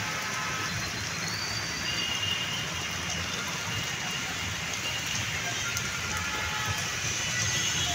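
Monsoon rain falling steadily, an even, unbroken hiss.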